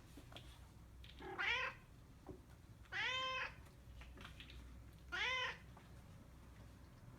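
Five-and-a-half-week-old Maine Coon kittens meowing: three high calls, each about half a second long, rising then falling in pitch.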